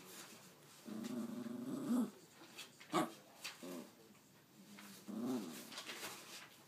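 Small dog 'talking': a string of drawn-out, pitched vocalizations, the first about a second long and rising at its end, then shorter ones, and another rising call a little past the middle.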